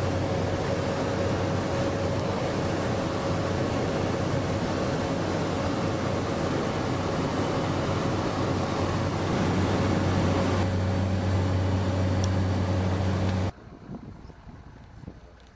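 Steady drone of a single-engine light aircraft's engine and propeller, heard from inside the cabin in flight. About two seconds before the end it cuts off abruptly to faint, quiet outdoor ambience.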